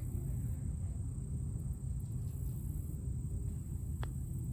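Steady low outdoor background rumble, then about four seconds in a single sharp click of a putter striking a golf ball.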